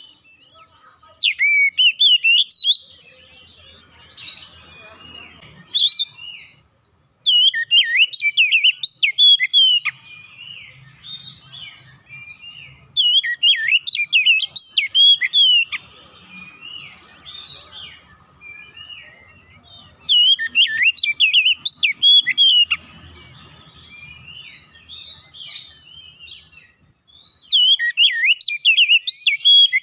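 Oriental magpie-robin singing: five loud bouts of fast, varied whistled phrases, each two to three seconds long and about six seconds apart, with softer twittering between them.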